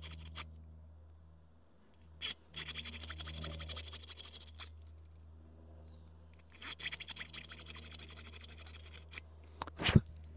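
A thin jet-cleaning wire rasping back and forth through the small holes of a brass carburettor emulsion tube, in two scratchy spells of quick strokes about two seconds each, then a sharp knock just before the end. The wire is clearing a totally blocked emulsion tube.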